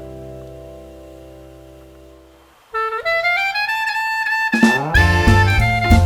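Jazzy music. A held chord fades away, then a saxophone-like horn melody comes in about two and a half seconds in with a rising phrase. A drum kit and bass join about five seconds in.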